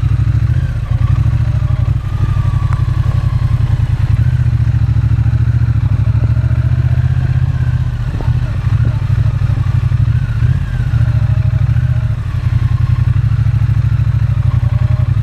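Triumph Bonneville T120's 1200cc parallel-twin engine burbling at low revs through its twin pea-shooter exhausts while the bike is ridden, heard from on the bike. The engine note is steady, easing briefly about twelve seconds in.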